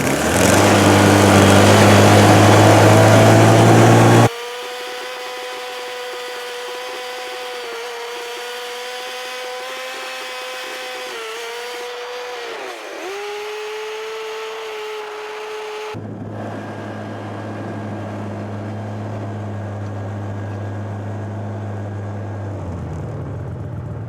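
Engines running in three abruptly cut stretches: a low steady engine, then a higher-pitched small engine whining that dips in pitch once, briefly, as if loaded, then the low engine again.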